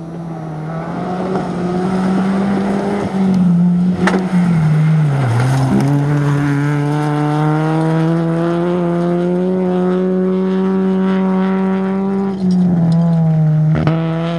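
Rally car engines held at high revs on a gravel stage. The pitch dips about five seconds in, climbs slowly for several seconds, then drops back near the end.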